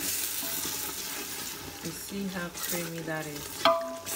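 Tomato and pepper sauce with cream frying in a pan, a steady sizzle.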